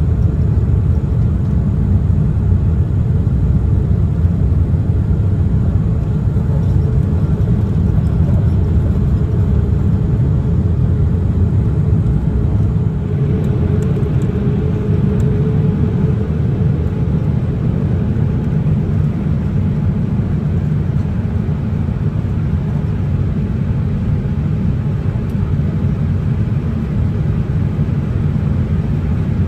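Steady low rumble of a Boeing 787-8 airliner heard from inside the cabin: engine and airflow noise, with no change in level.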